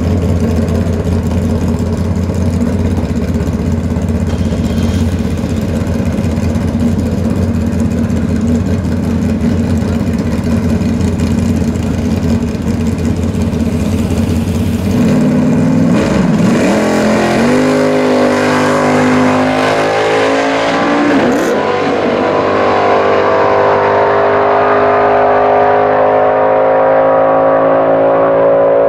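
Pontiac Firebird drag car's engine idling with a loud, lumpy rumble, then going to full throttle about halfway through as the car launches down the strip. The pitch climbs and drops back a few times at the gear changes, then holds high and steady at full power.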